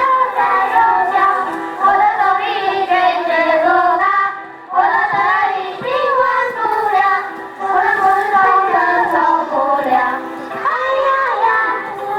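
A song sung by a child's voice over a musical accompaniment, with a short break in the singing about four and a half seconds in.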